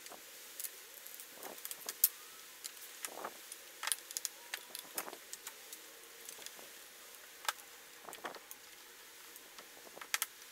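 Metallic clicks, clinks and light scrapes of a sheet-metal computer power supply case and its small parts being handled and taken apart on a wooden board, coming irregularly, the loudest about two seconds in.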